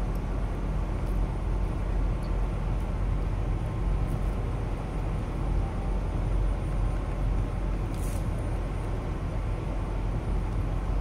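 Steady low rumble of truck engines and road traffic, with a short hiss of air about eight seconds in.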